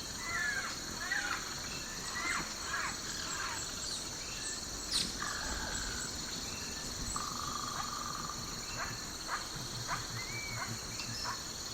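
Outdoor nature ambience: a steady high insect drone under many short bird calls and chirps, with a couple of longer held whistled notes in the middle.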